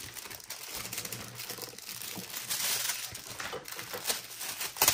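A clear plastic packaging bag crinkling and rustling as a coiled phone cord is taken out of it, with a few sharper, louder crackles near the end.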